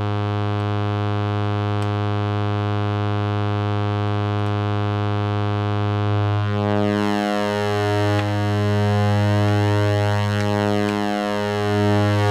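Three modular-synthesizer oscillators tuned to the same low note, sounding together as a steady drone. About six and a half seconds in, a slow phasing beat sets in and the tone wavers every few seconds.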